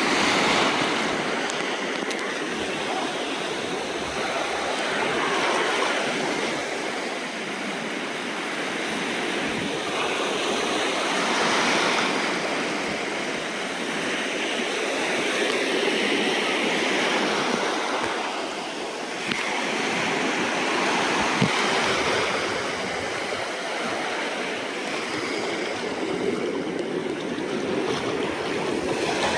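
Ocean waves breaking and washing up the shore, a steady rushing that swells and eases every few seconds.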